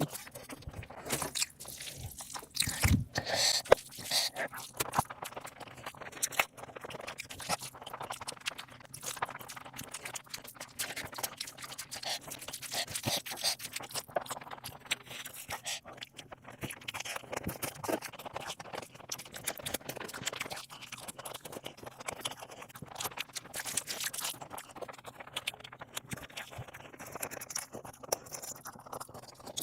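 A person eating close to the microphone: irregular chewing and crunching with many small mouth clicks, loudest about three to four seconds in.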